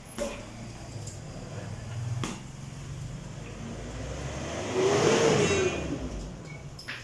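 A motor vehicle going by, its engine swelling to a peak about five seconds in and then fading, with a pitch that rises and falls. Before it, two thuds of punches landing on a heavy punching bag, one right at the start and one about two seconds in.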